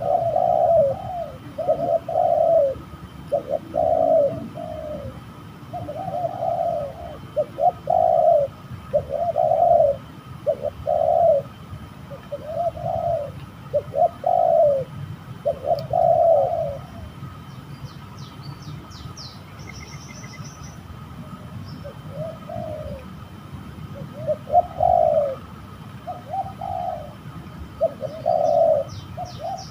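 Spotted dove cooing: a run of short, repeated coos about one a second, which pause for a few seconds past the middle and then resume. A small bird's quick, high chirps come in twice, once just after the coos stop and again near the end.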